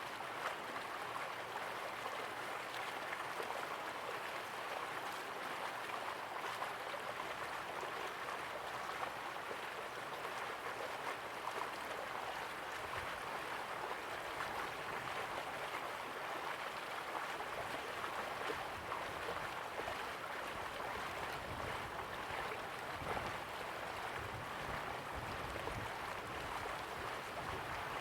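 A river's slow-flowing water, a steady even rush and gurgle.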